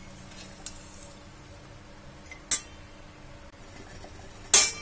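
Steel ladle clinking against a stainless steel pot while stirring ginger-sugar syrup as it cooks down: a few sharp metallic clinks, the loudest near the end.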